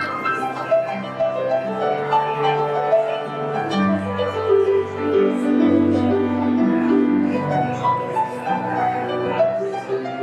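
Instrumental keyboard music, piano-like, playing a melody over held chords.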